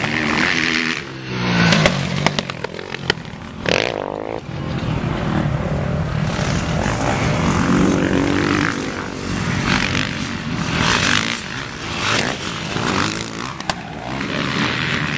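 Motocross dirt-bike engines revving, their pitch rising and falling as the bikes accelerate and pass.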